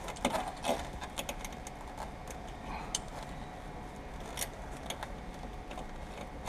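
Glass cut-out wire being worked by hand through roof-glass urethane, giving irregular sharp ticks and scrapes as it catches on the metal of the roof frame.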